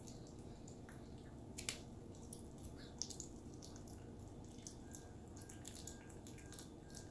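Yorkshire terrier chewing bone-in raw chicken neck: faint wet, clicking mouth sounds, with two sharper clicks nearly two and three seconds in.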